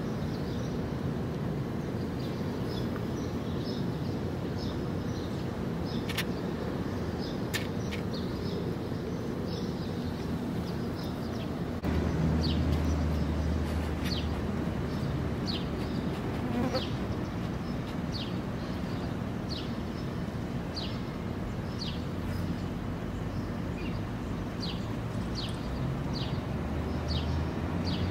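Outdoor ambience: a steady low rumble, with short high chirps repeating about once a second. A deeper hum comes in about halfway through.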